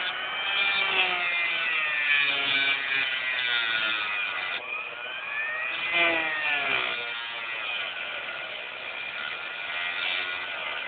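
Small handheld rotary grinder whining at high speed while grinding the inside of a rail at the point of an HO-scale Peco switch, its pitch sagging and recovering twice as it bears on the metal. The rail is being ground out so it can be filled with epoxy to stop locomotives shorting at the switch.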